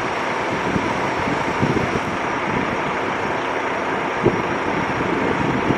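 Distant jet roar of a climbing Airbus A330-243F freighter's two Rolls-Royce Trent 700 turbofans, a steady even rumble. Gusts of wind buffet the microphone now and then.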